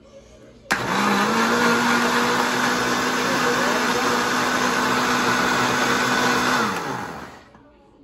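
Mondial L-900 Turbo countertop blender switched on with water in the jar: the motor starts suddenly just under a second in and runs steadily for about six seconds, then spins down and stops near the end.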